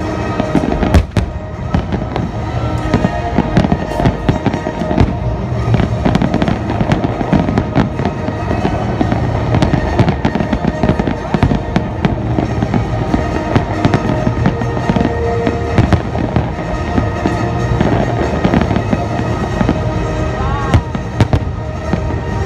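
Aerial fireworks bursting in quick, continuous succession, a dense run of bangs with no let-up, over music playing.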